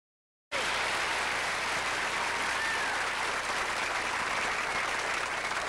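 An audience applauding steadily, with one short whistle about halfway through. The applause comes in abruptly after half a second of dead silence.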